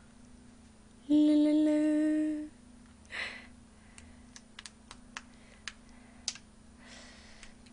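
A woman humming one steady closed-mouth 'mmm' note for about a second and a half, a little over a second in. Around it come scattered light clicks and cracks of boiled lobster shell being handled and pulled apart.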